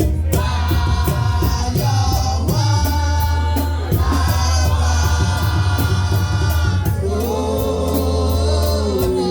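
Gospel music with a choir singing held notes over a steady bass line and drums.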